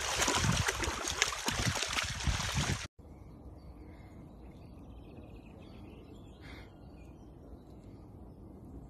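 A dachshund splashing as it wades through shallow water, with wind buffeting the microphone. About 3 s in this cuts off to quiet lakeside background with faint bird calls and one louder call about 6.5 s in.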